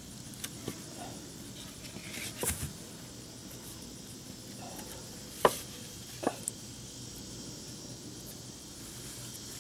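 Wooden blocks being stacked and shifted under a boat hull: a few scattered sharp wood-on-wood knocks, the loudest about five and a half seconds in and another just under a second later.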